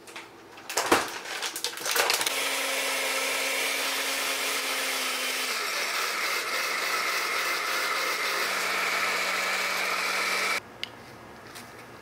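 Countertop blender blending a smoothie. A few knocks and clicks as it is set up are followed by about eight seconds of steady motor whir. The whir drops to a lower pitch about halfway through and cuts off sharply near the end.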